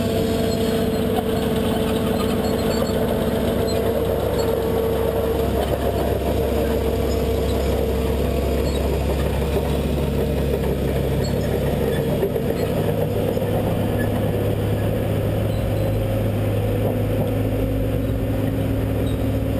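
Excavator engine running steadily under load while it digs, with a high steady whine over the engine note; the note shifts a couple of times.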